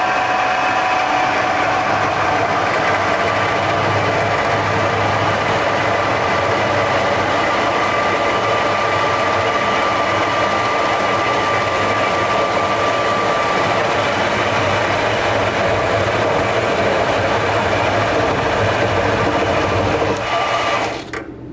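A 1.5 HP Enco knee mill running at speed while a spinning aluminium tube is pressed against a clamped aluminium tube for friction welding. The result is a loud, steady rubbing noise with a few high tones over the motor. It cuts off suddenly near the end, when the upper holding bolt broke and the piece slipped.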